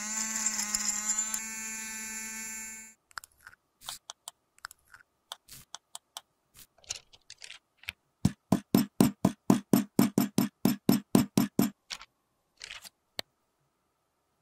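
A small electric powder grinder's motor spins up with a rising whine, runs steadily for about three seconds and stops. Scattered clicks and taps follow. Then comes a fast, even run of knocks, about five a second for three to four seconds, as the blush powder is pressed into its pan with a steel press.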